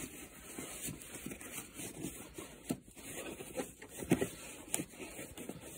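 Hands rummaging in a fabric tool bag's pocket: rustling of the bag's material, with a few small clicks and knocks of tools.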